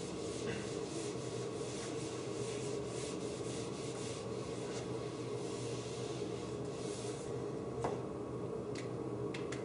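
Whiteboard eraser rubbed back and forth across a whiteboard, wiping it clean in a run of quick strokes. The wiping stops about eight seconds in, followed by a couple of light taps.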